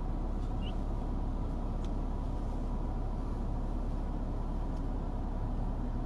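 Steady low rumble of vehicle noise, with a couple of faint ticks.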